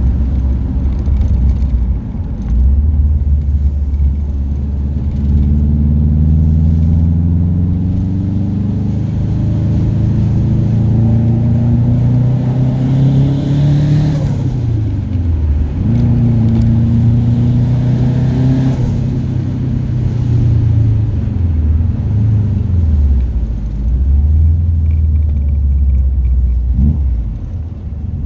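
Subaru Impreza GC8's turbocharged flat-four with a Garrett GT30 turbo accelerating hard, its pitch rising through a long gear. As the revs drop for a shift about halfway through, the turbo flutters. The engine pulls again more briefly, flutters at a second shift, then runs at lower revs.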